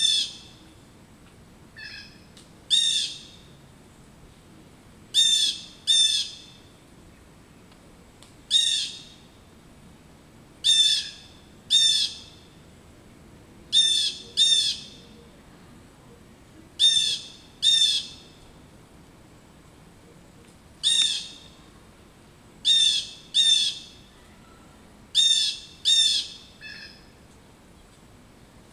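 Blue jay giving harsh jay calls, mostly in pairs, every two to three seconds: alarm calls mobbing a perched osprey.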